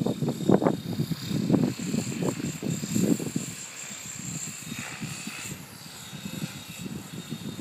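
Wind buffeting the microphone in gusts, strongest in the first few seconds, over a steady high-pitched whine from a remote-control helicopter flying overhead.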